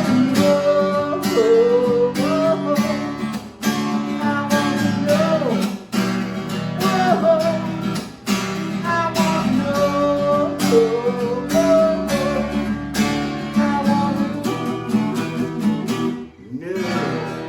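Acoustic guitar strummed in a steady rhythm under held, wavering sung notes, the closing chorus of a singer-songwriter song. A final strum about sixteen seconds in rings out and fades, ending the song.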